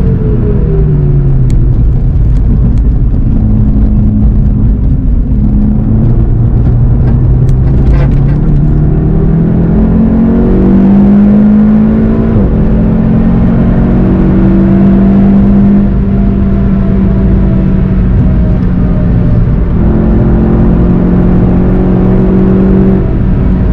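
Golf 7 GTI TCR's turbocharged 2.0-litre four-cylinder engine heard from inside the cabin on track, with tyre and road rumble. Its pitch falls as the car brakes, then climbs and holds under load, dropping briefly at a couple of points where it shifts gear.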